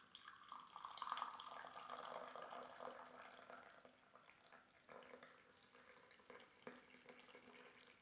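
Liquid poured in a thin stream from a glass French press into a ceramic cup. The splashing starts at once, is strongest in the first three seconds, then thins to a light trickle and a few drips toward the end.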